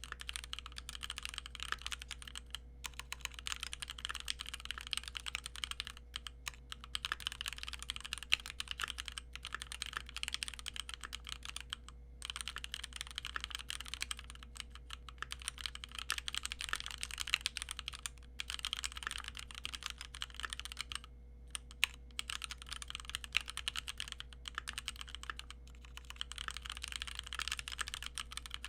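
Keychron Q1 knob-version mechanical keyboard being typed on in continuous runs of keystrokes, broken by brief pauses. It is fully stock, with Gateron G Pro Red linear switches and stock keycaps.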